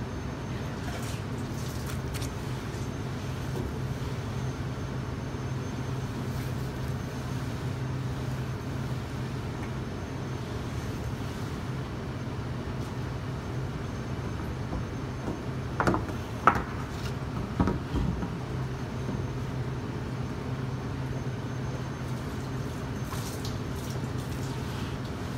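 Gas burner of a bakery deck oven running steadily with a low hum, broken by three sharp knocks a little past the middle.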